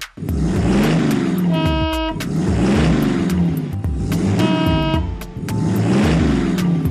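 Background music with a regular beat and a recurring horn-like toot about every three seconds.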